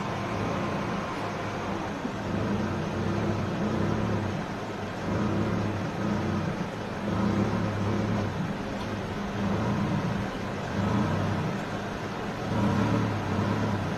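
A vehicle engine idling with a steady low hum that swells and eases a little.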